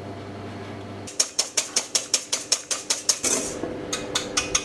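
Balloon whisk beating egg whites to stiff peaks by hand in a stainless steel bowl: fast, even clicking of the wires against the bowl, about seven strokes a second, with a short break before it resumes near the end.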